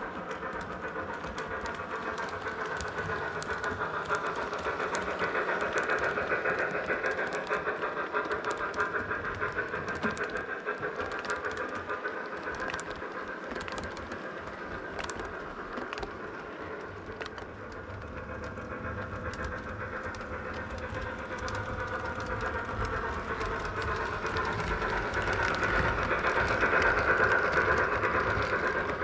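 O gauge model trains running on three-rail track: a steady rolling rumble and whine with scattered clicks from the wheels at rail joints. It swells about a fifth of the way in, eases off in the middle, and is loudest near the end as passenger cars pass close by.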